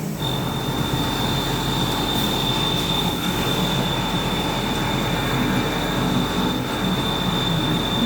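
Haas VF4 CNC vertical mill running a cut: a steady high-pitched whine begins just after the start and holds over the machine's steady running noise.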